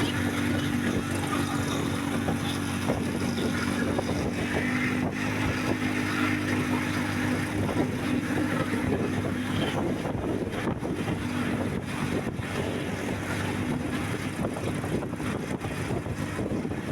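A vehicle engine running steadily with a constant low drone, and wind rushing over the microphone.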